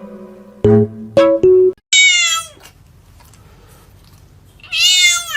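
Three short electronic keyboard notes, then a cat meowing twice, each meow a short cry that falls in pitch, about three seconds apart.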